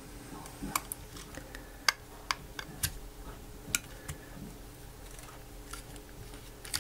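Small plastic clicks and ticks as plastic opening picks are worked into the seam of an IKEA Tradfri button's plastic case to pry at a stiff hinge. About half a dozen sharp clicks are scattered through it, the loudest about two seconds in.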